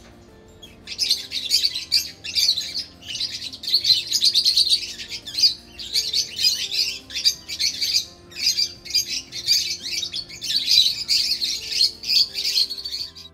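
A flock of small parrots, lovebirds and cockatiels, chattering with shrill, rapid calls that start about a second in and go on without a break. Faint background music sits underneath.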